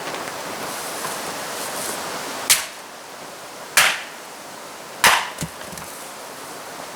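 Three sharp chops of wood being split, evenly spaced a little over a second apart, over a steady rustling in the background.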